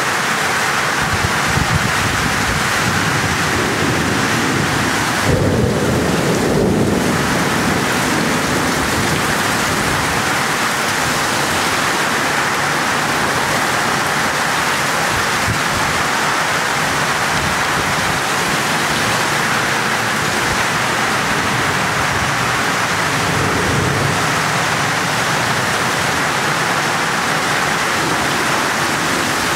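Heavy rain pouring steadily, with a low rumble of thunder about five seconds in.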